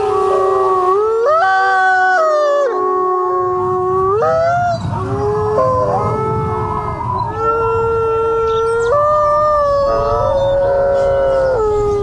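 A chorus of Mexican gray wolves howling together: several long howls at different pitches overlap, each holding a steady note and then sliding up or down to a new one.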